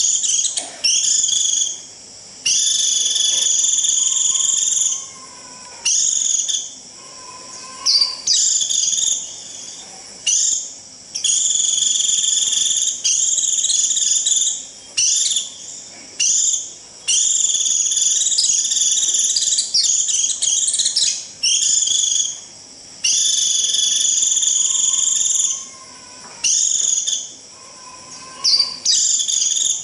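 White-eye giving shrill, buzzy 'rít' flock-calling notes, a string of long held calls and quick short ones with brief gaps, used to draw in a flock. A few faint, lower whistled notes sound between them.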